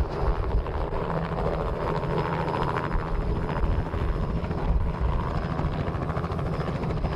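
Robinson helicopter running close by: a steady, rapidly pulsing beat of rotor and engine noise.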